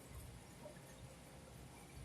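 Near silence: faint low background rumble.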